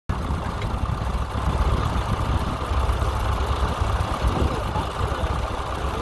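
Fordson Dexta tractor engine running steadily under load while pulling a mounted plough through the soil.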